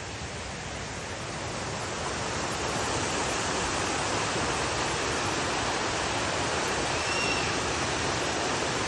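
Waterfall: the steady rush of falling water, growing louder over the first three seconds and then holding level.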